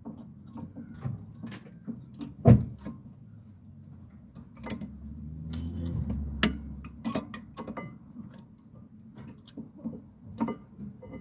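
Irregular clicks and metallic knocks of tools and parts being handled, with one much louder knock about two and a half seconds in. A low hum swells up and fades around the middle.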